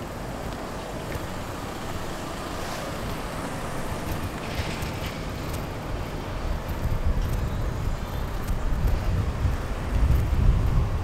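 Outdoor ambience: wind buffeting the microphone in irregular gusts that grow stronger in the second half, over a steady faint hum of distant traffic.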